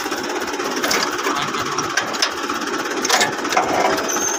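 Tractor engine idling steadily with a fast, even chug. A few sharp clicks sound over it, about one, two and three seconds in.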